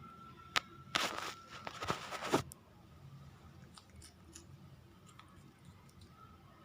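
A cat crunching on a dry treat: a sharp click, then a dense run of crunching for about a second and a half.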